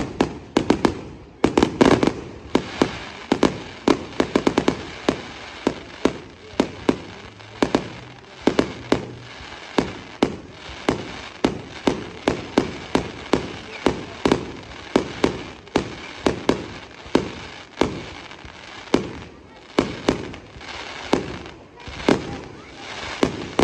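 Aerial fireworks display: a rapid, uneven string of shell bursts going off about two a second, with no pause.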